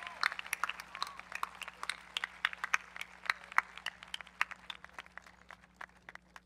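Crowd applauding, the many claps thinning out and dying away toward the end.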